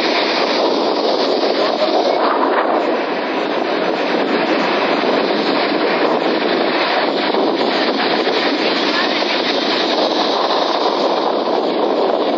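Sea waves and surf: a continuous wash of noise with no pauses or separate breakers.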